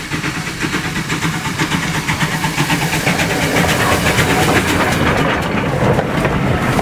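Steam locomotive hauling a train, its rhythmic exhaust beats and the clatter of wheels on the rails growing steadily louder as it approaches.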